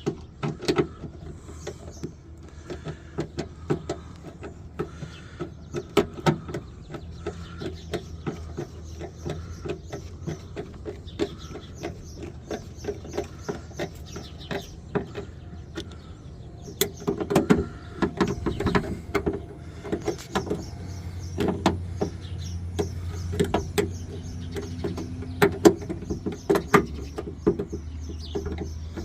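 Irregular clicks, taps and knocks of hand tools, screws and plastic parts being worked inside a pickup truck's door as the latch assembly's bottom piece is screwed in, busier and louder in the second half, over a steady low hum.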